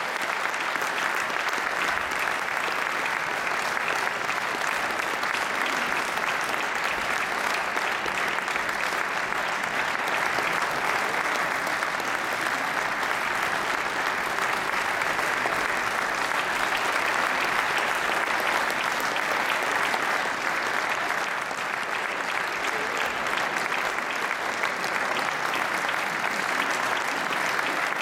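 A large audience applauding steadily in a concert hall, the clapping even and unbroken throughout.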